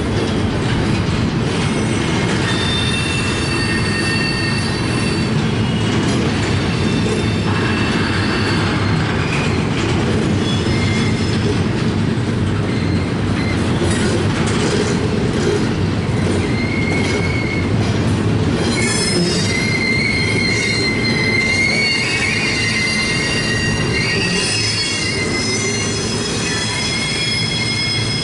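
CSX intermodal freight train rolling past with a steady low rumble of wheels on rail, overlaid with high-pitched wheel squeal. From about two-thirds of the way through, a louder squeal wavers in pitch. The squeal comes from the wheels working through the curved track of the wye.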